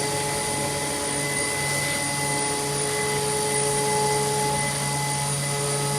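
Automatic tray-sealing machine running in MAP (vacuum and gas-flush) mode: a steady mechanical hum and hiss with several steady tones, unchanged throughout.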